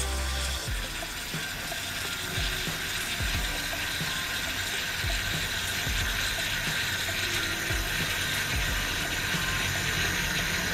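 Steam wand of a Bellman CX-25 stovetop moka pot hissing steadily with its tip down in a pitcher of milk, steaming and texturing the milk for latte art.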